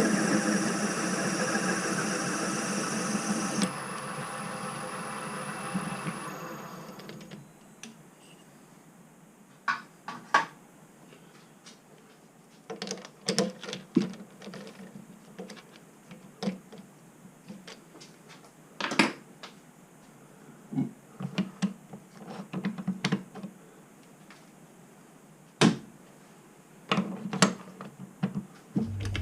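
Myford Super 7B lathe running with a steady mechanical hum, which dies away about five to seven seconds in. After that come scattered short metallic clicks and knocks, from tools and parts being handled.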